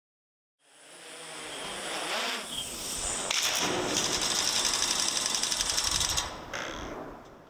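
Loud, fast mechanical rattling and whirring that fades in, holds steady through the middle, and fades out near the end.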